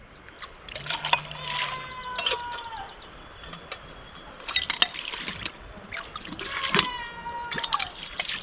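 Two long, high-pitched bleats from a young animal of a sheep and goat flock, each falling slightly at the end, one about a second in and one near the end. Scattered clicks and light splashing of water come in between.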